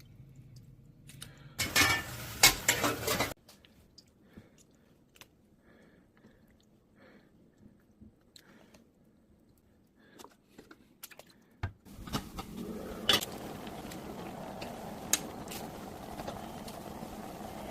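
Kitchen handling sounds: a loud rush lasting under two seconds near the start, then scattered light clinks of dishes and utensils. From about twelve seconds in, a steady hiss like a pot on the boil sets in, with a few sharp clinks over it.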